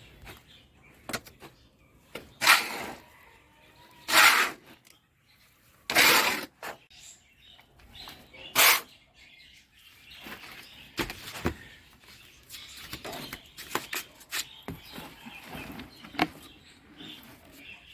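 Soil being scooped and turned in a rooftop planter box while vermicompost is mixed in: four short scraping swishes about two seconds apart, then lighter scratching and ticking. Birds chirp in the background.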